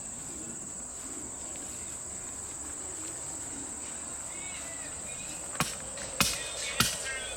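Steady high-pitched drone of insects in a summer garden. About five and a half seconds in, background music with a sharp, regular percussive beat comes in.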